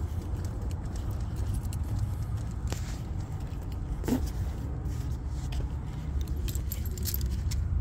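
Light metallic jingling and clinking, irregular and continuous, over a steady low rumble of handling and walking noise. A short squeak comes about four seconds in.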